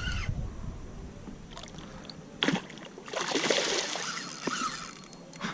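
A hooked northern pike fighting beside a kayak: a sharp splash about two and a half seconds in, then about a second of dense rushing noise as the fish thrashes.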